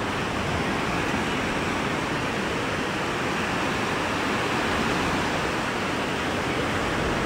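Sea surf washing in, a steady rushing noise with no distinct breaks.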